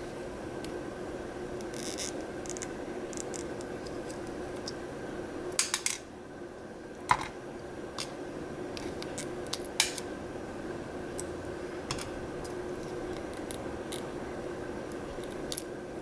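Small, sharp metallic clicks and taps of tweezers and tiny brass lock pins being picked out of a disassembled Lockwood pin-tumbler cylinder and set down, a few close together about six seconds in and others scattered through, over a steady electrical hum.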